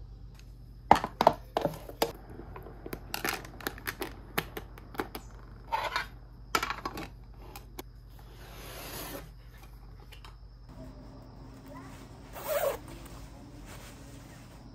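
A run of sharp clicks and light clatter of small hard objects being handled, followed by a soft swish and one more brief knock near the end.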